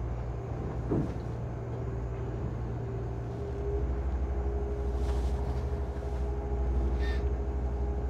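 Twin Volvo Penta IPS500 diesel engines running at low cruising speed, heard as a steady low rumble from inside the helm cabin. The rumble grows a little louder about halfway through.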